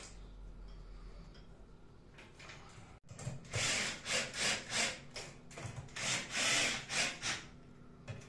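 Cordless drill/driver driving screws through a split air-conditioner's metal wall-mounting plate into the wall, in a run of short scraping bursts about two a second that start about three seconds in. Before that there is only faint room sound.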